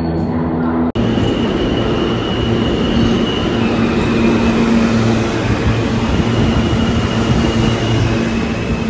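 New York City subway train pulling into the station along the platform, starting about a second in. Its wheels rumble and rattle on the rails, with thin, high, steady squeal tones over them.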